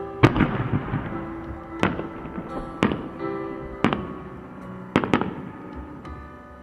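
Aerial fireworks bursting, about one sharp bang a second with a crackling tail after each, two in quick succession near the end, over background music.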